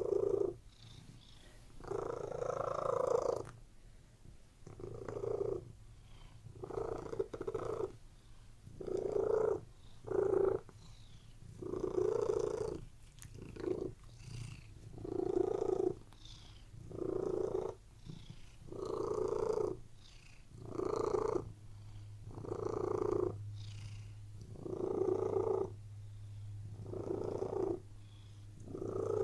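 Domestic tabby cat purring steadily, the purr swelling and easing in regular waves about every one and a half to two seconds.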